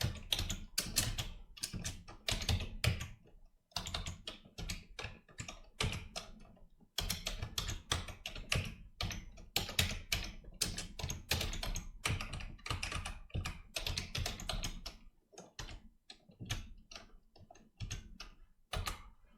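Typing on a computer keyboard: irregular runs of keystrokes with a few short pauses.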